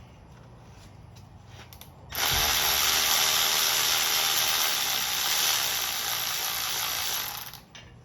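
A power tool runs steadily for about five seconds, starting about two seconds in and stopping near the end, backing a bolt or stud out of the engine during teardown.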